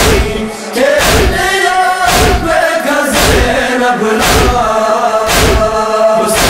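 Male reciters chanting a Balti noha, a Shia lament, to a steady beat of heavy thumps about once a second.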